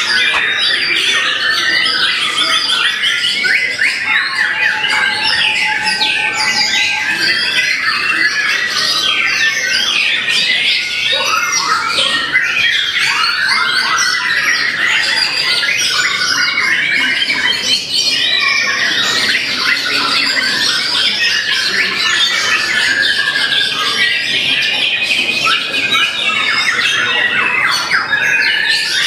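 White-rumped shama (murai batu) in full contest song: a continuous, rapid run of varied whistles, trills and harsh chattering notes, packed with mimicked calls of other birds (isian).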